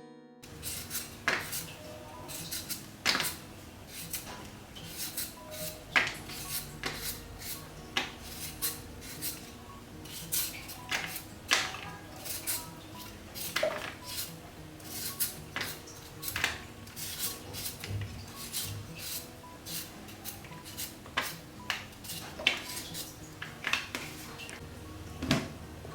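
Irregular clinks, knocks and scrapes of kitchen utensils and dishes handled during food preparation, several a second with uneven gaps.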